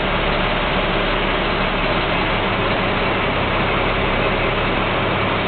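Bus engine running steadily, heard from inside the bus as an even drone with a low hum.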